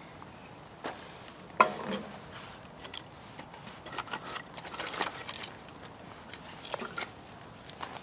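Split firewood and kindling being laid into the firebox of a Winnerwell stainless-steel tent stove: one sharp knock of wood against the steel about one and a half seconds in, then scattered lighter clunks and rustles as more kindling goes in.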